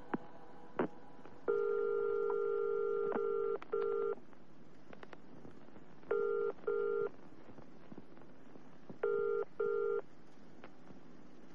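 Telephone call being placed. A couple of clicks as the receiver is lifted, a steady dial tone for about two seconds, and a few faint clicks of dialling. Then the British double-beep ringing tone, two short beeps repeating about every three seconds, as the line rings out before it is answered.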